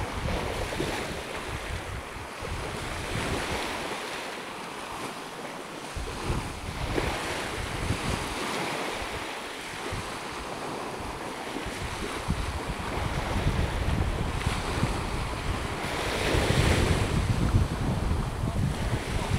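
Small waves washing onto a sandy shore, with wind buffeting the microphone in gusts near the start and again late on.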